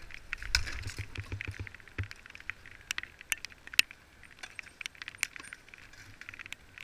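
Scattered sharp clicks and metallic clinks from bicycles and bike-polo mallets in play, with a low rumble during the first two seconds.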